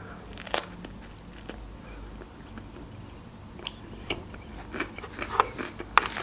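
Biting into and chewing a sprat sandwich on bread with lettuce: a sharp crunch about half a second in, then a run of crisp crunches and mouth clicks in the second half, over quiet chewing.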